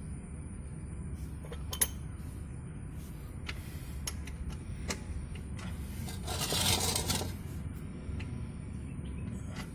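Small metal clicks and clinks as the oil drain bolt and its washer are handled and a 12 mm spanner is fitted onto the bolt to tighten it, with one sharp click about two seconds in. A short scraping rustle comes about six and a half seconds in.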